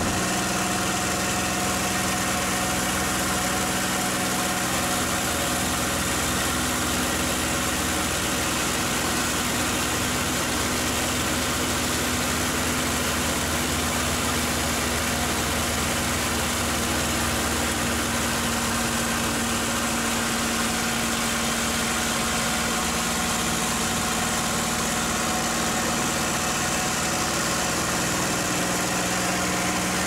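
Packard Merlin V-1650-7 V12 engine of a P-51D Mustang running steadily in flight, heard from inside the cockpit: a loud even drone that holds its pitch, over a steady hiss.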